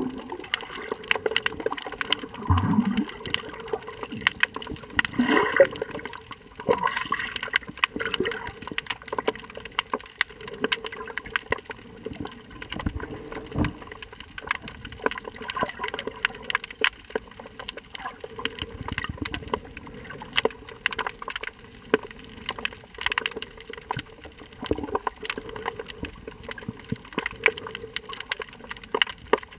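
Underwater ambience recorded with the camera submerged: water moving against the microphone, overlaid with dense, irregular crackling clicks, and a few low swishes.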